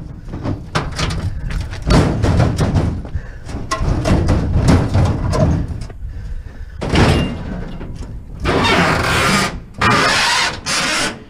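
Clanks, knocks and scraping of scrap metal being handled and loaded onto a truck: a string of sharp bangs, then several longer grinding scrapes near the end.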